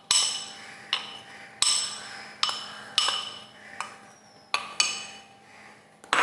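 A spoon tapping against a bowl about nine times at an uneven pace, each tap ringing briefly, as the cornflour and maida mix is knocked off the spoon into the marinated chicken.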